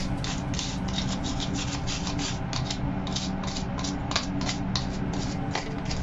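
Toothbrush bristles scrubbing the plastic frame and mesh of a washing machine lint filter (LG magic filter) in quick short strokes, about four a second.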